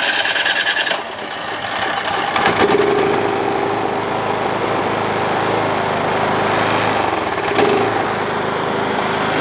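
A Craftsman 208cc snowblower engine being cranked by its electric starter, which rattles for about a second, then catches a couple of seconds in and runs steadily. A second 208cc snowblower engine runs alongside it.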